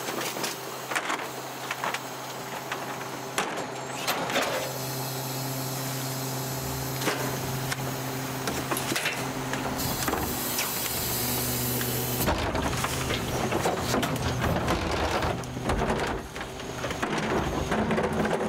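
1995 Ford L8000 garbage truck's engine running steadily behind the rear hopper, its hum growing heavier about four seconds in and again near twelve seconds. Over it come knocks and clatter as a plastic trash cart is tipped against the hopper lip and bags of trash drop in.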